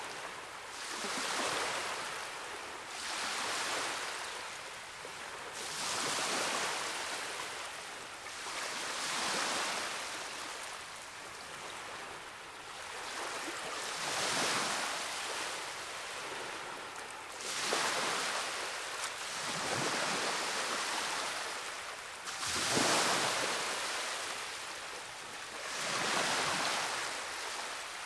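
Ocean surf: waves breaking and washing back, swelling and fading every few seconds.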